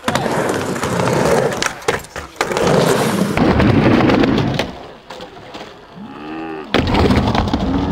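Skateboard wheels rolling on a wooden ramp, with sharp clacks of the board, then a quieter stretch while the skater is in the air. About seven seconds in, the board lands back on the ramp with a sudden loud impact, and the rolling starts again.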